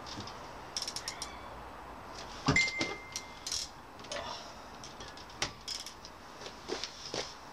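Metal hand tools clicking and clinking while a car's wiper-arm nuts are undone with a socket: a quick run of small clicks about a second in, a loud clink that rings briefly about two and a half seconds in, then scattered taps and clicks.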